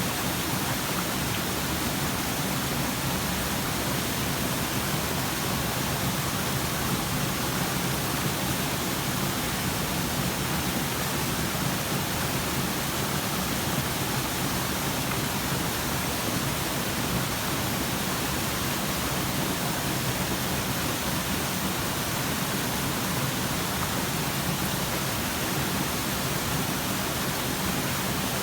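Waterfall: a steady, even rush of falling and splashing water that holds without change.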